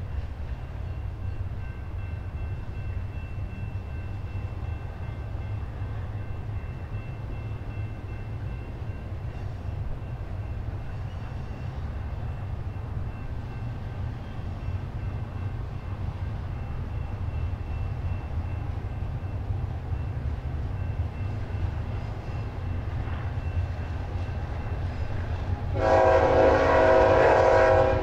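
Steady low rumble of a moving freight train. Near the end a diesel locomotive's air horn sounds a loud chord for about two seconds.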